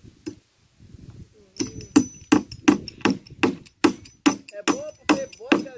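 A hammer driving nails into a thick wooden plank of a cattle feed trough. A steady run of sharp blows, about two and a half a second, starts about a second and a half in, each blow with a faint metallic ring.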